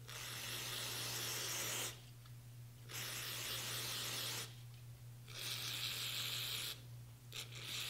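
Aerosol can of non-chlorinated brake parts cleaner spraying through its red extension straw onto small rifle parts. It sprays in three hissing bursts of about one and a half to two seconds each, with short pauses between them, and a fourth burst starts near the end.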